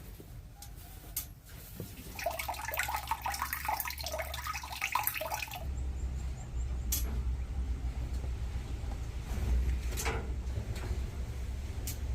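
Water splashing or gushing for about three and a half seconds over a steady low rumble, followed by a few sharp knocks.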